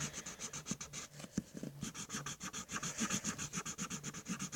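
Colouring in on paper: quick back-and-forth strokes of a colouring pen or pencil scratching across the sheet, about six strokes a second, with a short pause a little after a second in.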